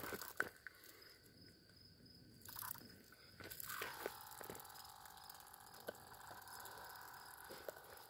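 A cicada buzzing: a faint steady buzz that starts about four seconds in, dipping in pitch at first and then holding. A few light taps and scuffs from the Great Dane's paws on the pavement.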